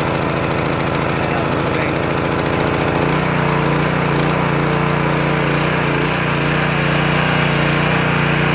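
Mi-T-M ChoreMaster 3000 PSI pressure washer's single-cylinder gas engine running steadily, freshly pull-started and opened to full throttle. Its note shifts abruptly about three seconds in as the choke is switched over to run.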